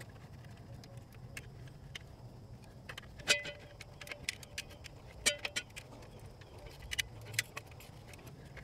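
A screwdriver and metal terminal lugs in a 240 V AC disconnect box clicking and clinking while stranded conductors are worked and the lug screws are tightened. Scattered small clicks, with two sharper ringing clinks about three and five seconds in and a few more near the end.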